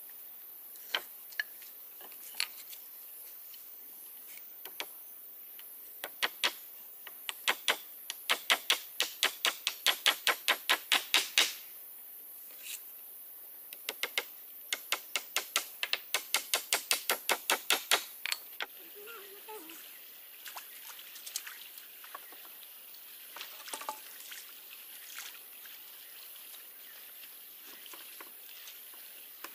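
Rapid chopping with a blade on a board: sharp knocks about four a second in two runs of several seconds each, with scattered single knocks before and after.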